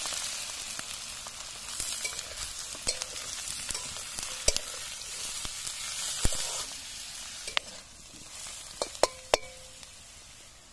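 Pork and sliced onions sizzling in a large aluminium wok while a metal spatula stirs them, with sharp clinks of the spatula against the pan, three in quick succession near the end. The sizzle grows quieter over the last few seconds.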